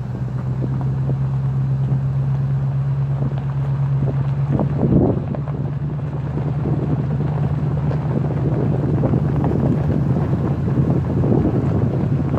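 Ford Expedition driving slowly on a gravel dirt road: a steady low drone of engine and tyres, with gravel crunching and small rattles, and a louder jolt over a bump about five seconds in.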